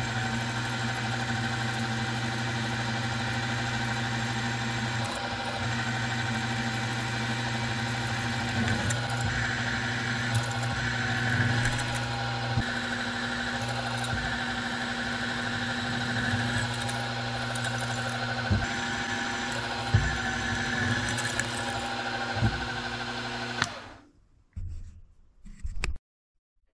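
Milling machine spindle running steadily while drilling holes in an aluminium plate, the cutting note rising and falling as the bit feeds, with a few sharp knocks. The machine shuts off about 24 seconds in, followed by brief handling clatter.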